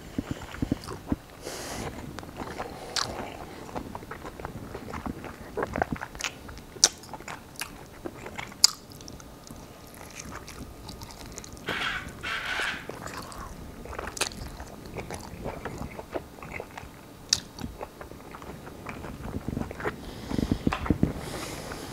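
A person eating sauced fried chicken wings close to the microphone: biting and chewing with loud lip smacking, irregular wet smacks and crunches.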